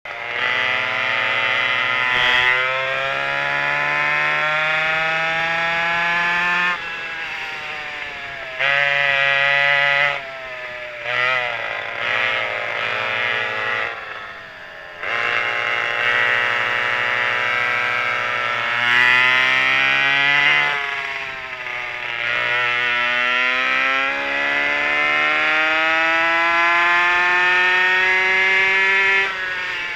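A pair of McCulloch 5.3 ci two-stroke chainsaw engines driving a vintage kart at racing speed, the pitch climbing steadily along each straight and dropping sharply when the throttle comes off for a corner, again and again. The deepest lift-off comes about halfway through.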